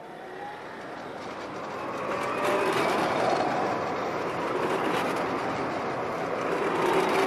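Strasbourg Eurotram running on its tracks, growing louder over the first two and a half seconds as it approaches and then staying loud and close.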